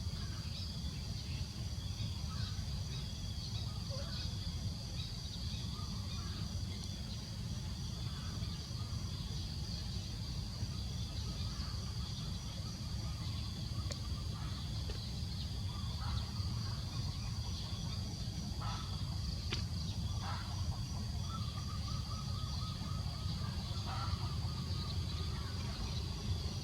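Forest ambience: a steady high insect drone over a low constant rumble, with scattered short chirping calls and a longer held call near the end.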